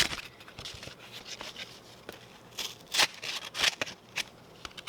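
Knife blade slicing and tearing through thick paper or cardboard in a few short, irregular rasping strokes, the loudest about three seconds in: a test of the edge just sharpened on a belt sander.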